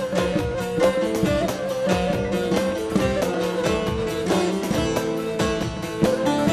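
Long-necked bağlama (Turkish saz) played with a plectrum: a rapid, busy plucked melody forming the instrumental passage of a Turkish folk song (türkü).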